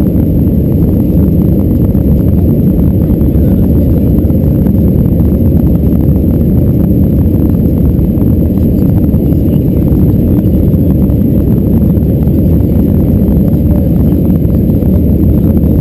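Cabin noise of an Airbus A319-112 climbing after takeoff, heard inside the cabin beside the wing: the CFM56 turbofans and the airflow make a loud, steady low rumble that does not change.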